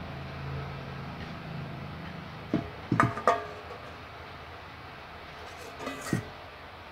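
Faint background music with a few plucked guitar notes over a low steady hum.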